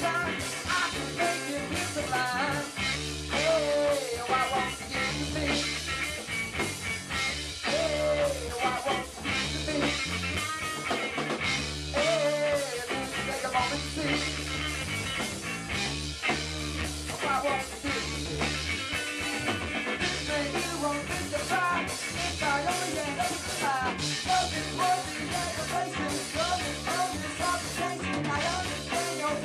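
Live rock band playing: a male singer over electric guitar, electric bass and a drum kit.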